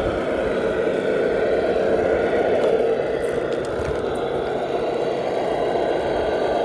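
Tamiya Arocs 3348 radio-controlled dump truck running on a test drive, a steady mechanical running sound with no breaks.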